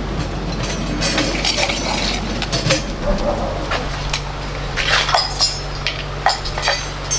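Metal utensils clinking and scraping against pots and dishes in a string of short, irregular clinks, over a steady low hum that grows stronger about four seconds in.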